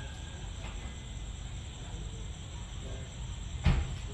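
Faint steady night ambience: a low rumble with insects chirping, broken by one sharp knock near the end.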